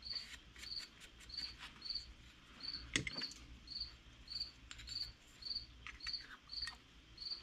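A cricket chirping steadily, about two short chirps a second, all at one high pitch. Faint clicks and scrapes of a small carburetor float bowl being handled come over it, the sharpest about three seconds in.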